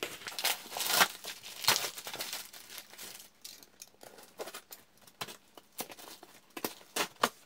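A cardboard parcel being slit along its edges with a box cutter and torn open, with paper packaging crinkling. Irregular scraping, tearing and rustling, busiest in the first two seconds, with a few sharp tearing sounds near the end.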